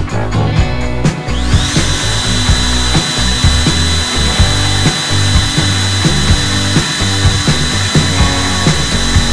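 Handheld trim router spinning up about a second and a half in, then running at a steady high whine while routing a fin box slot through a surfboard on a routing template. Background music plays throughout.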